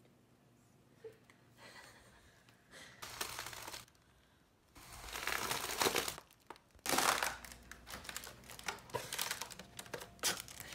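Silver foil (mylar) balloon being blown up by mouth: long breaths blown into its valve in two loud stretches about halfway through, with the foil crinkling and crackling as it is handled.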